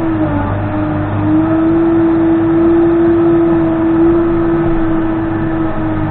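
Case 580N backhoe loader running, its diesel engine and machinery giving a steady whine that dips briefly near the start, then rises slightly in pitch and grows a little louder about a second in.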